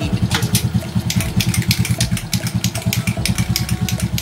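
Motorcycle engine idling with an even putt of about eight or nine beats a second, with a fast, irregular ticking over it.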